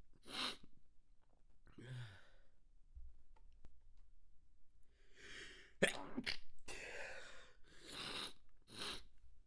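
A person's stifled sneezes: short, breathy bursts held back in the nose and throat. One comes early and one about two seconds in, then a quick run of them in the second half, the sharpest about six seconds in.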